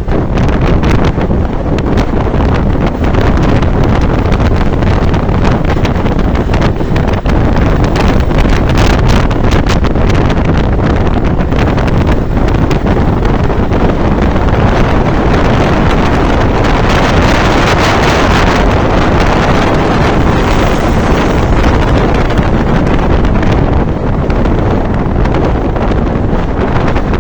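Heavy wind buffeting the microphone on a moving motorcycle: a loud, continuous rush that drowns out the engine and grows hissier for a few seconds past the middle.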